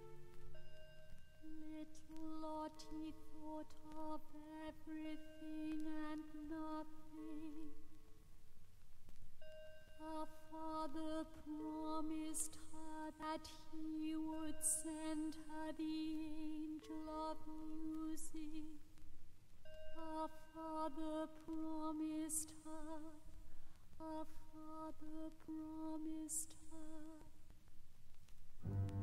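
A soft solo female voice singing a slow, sustained melody with vibrato, in three long phrases separated by short pauses, with a few crisp sibilants. This is a soprano from a musical-theatre cast recording played from vinyl.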